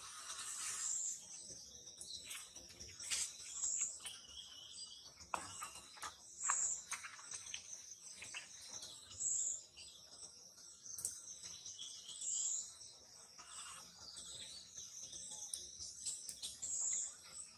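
Outdoor wildlife ambience: a steady high insect drone, with a high chirp repeating about every three seconds and a few short sharp clicks.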